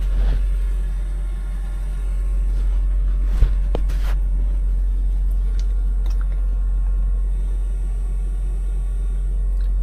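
Steady low rumble of an idling truck engine heard inside the cab, with a single sharp knock about three and a half seconds in.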